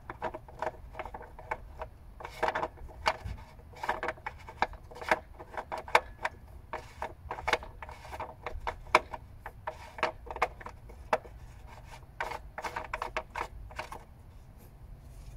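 Hand work on a 2017 Honda CR-V after an oil change, closing up and tightening a cover: a run of irregular clicks, taps and scrapes of parts being handled and fitted, stopping about 14 seconds in.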